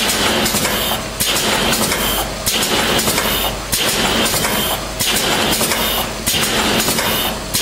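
MKH3 hot-melt glue machine running in repeated cycles, a loud mechanical clatter that starts suddenly and drops briefly about every second and a quarter. Each drop is the main drive slowing to a stop at its home position before the next turn.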